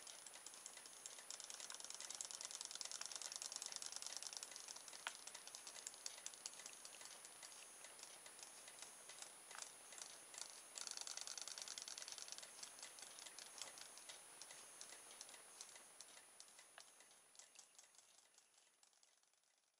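RoboFish toy robot fish's small battery motor and tail mechanism running as it swims in a bowl of water: a faint, rapid clicking rattle with a thin steady high tone, fading out near the end.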